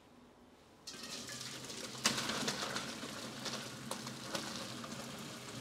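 Hot blanching water and blanched spinach poured from a steel pot into a perforated stainless steel colander in the sink, splashing and draining. It starts about a second in, with a sharp knock about two seconds in and a few smaller clicks.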